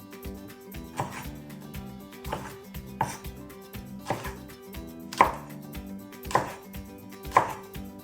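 Kitchen knife slicing vegetables on a chopping board, about seven separate cuts at roughly one a second, with background music underneath.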